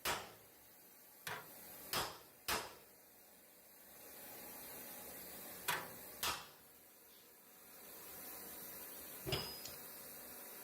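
Hammer striking a steel car frame rail that is being straightened: about seven light, separate blows spaced unevenly, with a faint steady hiss between them.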